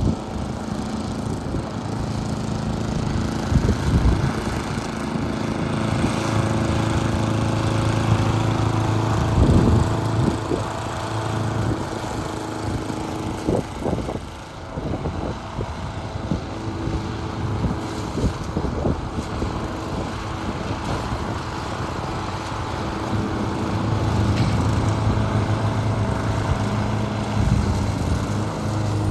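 An engine running steadily, its level rising and falling at times, with scattered knocks and rattles over it.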